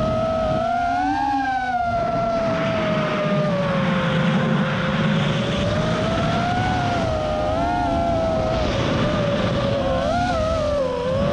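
FPV freestyle quadcopter's brushless motors and propellers whining, the pitch sliding up and down with the throttle, over steady rushing wind noise. There are quick swells in pitch about a second in and again near the end.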